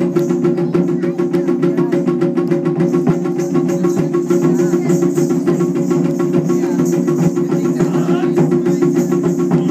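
Taiko drums beaten in a fast, even rhythm of many strokes a second, over a steady held tone.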